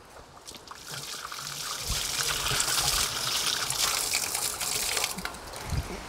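Tap water running into a concrete sink with a splashing trickle. It builds about a second in and eases off near the end, with a small knock just before it stops.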